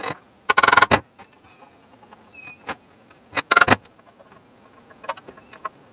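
Two short bursts of rapid metallic rattling, about half a second in and again a little past three seconds, with a few lighter clicks and knocks between, as the rusty blower fan housing is worked on with a screwdriver.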